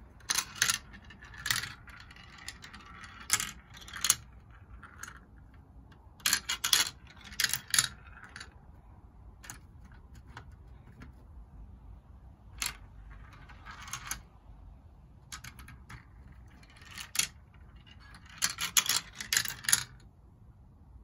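Marbles running down a plastic marble run, clicking and rattling through the tubes and tracks in repeated bursts of quick clicks with short gaps between. The busiest clattering comes at the start, in the middle and near the end.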